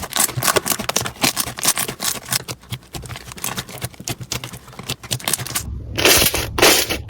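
Slime being worked by hand, making rapid small crackling clicks. About two-thirds of the way through it cuts abruptly to a louder, denser squishing crunch.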